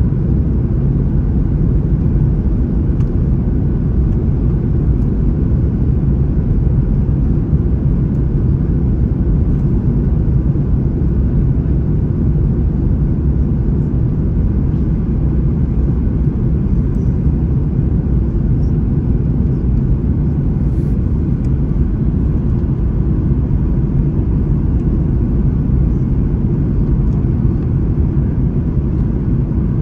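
Boeing 737 MAX 9 in flight: a steady, unbroken low rumble of engines and rushing air.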